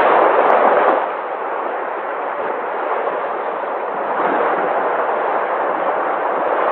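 Sea waves breaking and washing ashore: a continuous rushing surf noise that eases about a second in, then builds again.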